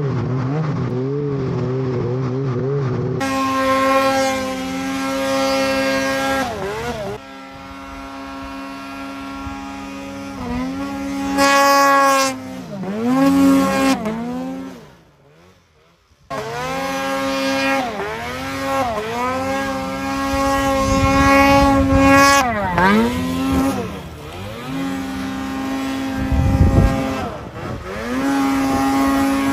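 Snowmobile engines running at high revs while riding through snow, the pitch repeatedly dropping and climbing again as the throttle is let off and opened. The engine sound cuts out briefly about halfway through.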